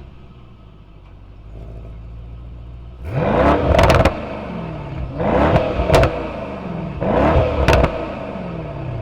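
Mercedes-AMG E63 S 4Matic+ twin-turbo 4.0-litre V8 idling, then revved hard three times, about two seconds apart, each rev rising and falling in pitch with sharp exhaust cracks near the top, before settling back to idle.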